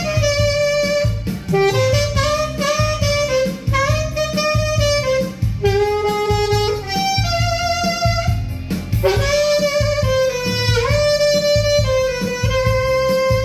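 Saxophone playing a slow melody of held, gliding notes over a backing track with bass and drums, settling on one long held note near the end.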